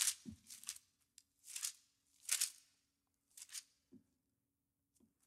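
Thin Bible pages being leafed through and turned, several soft, short papery swishes with gaps between them.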